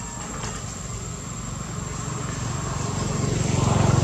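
A vehicle engine running close by, its low pulsing sound growing louder toward the end as it draws near.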